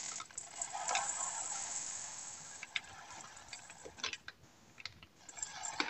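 Round rice being poured from its bag into a stainless steel bowl on a kitchen scale: a fading trickle of grains over the first couple of seconds, then a few short sharp ticks and small pours as the last grains are added to make up 180 g.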